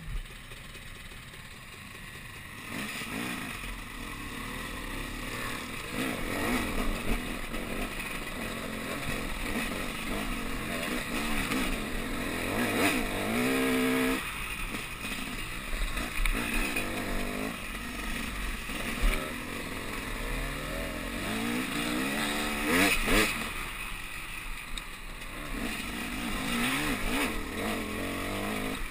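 Off-road dirt bike engine heard from the bike itself, pulling away about two and a half seconds in, then revving up and easing off again and again as it rides a rough trail, with repeated rising whines under acceleration.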